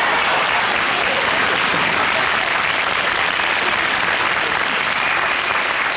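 Studio audience applauding, a steady dense wash of clapping that holds at one level.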